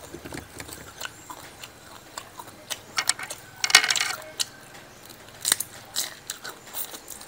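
Crisp crunching and crackling as a person chews fried sparrow, many small sharp clicks with a louder burst of crunching about four seconds in.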